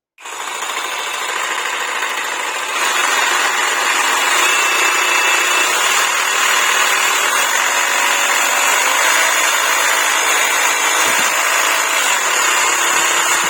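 Parkside Performance PSSPA 20-Li A1 cordless jigsaw with a brushless motor, switched on at speed level 1 and running unloaded with the blade reciprocating. It gets louder about three seconds in, and partway through its speed drops as the automatic speed regulator kicks in.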